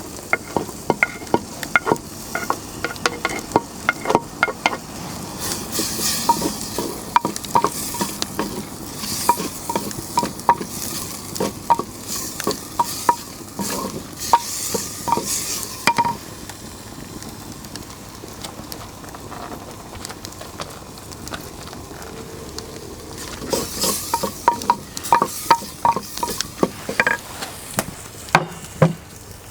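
Tomatoes being stirred into sizzling onions and spices in a clay pot, the utensil knocking the pot in many short ringing clinks over a steady frying hiss. The stirring pauses for several seconds in the middle and starts again near the end.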